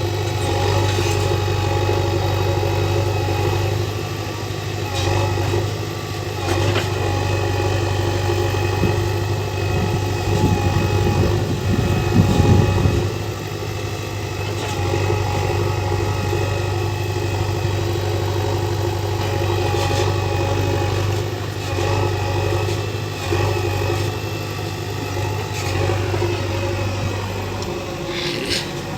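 JCB backhoe loader's diesel engine running steadily under work, with a louder, rougher surge about ten to thirteen seconds in and a few scattered knocks.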